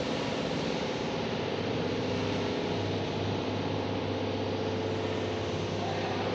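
Hero HF Deluxe motorcycle's small single-cylinder engine idling steadily.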